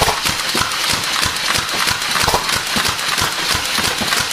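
Several Nerf dart blasters firing in a rapid, irregular string of clicks and pops, over the steady whir of a small coaxial RC helicopter.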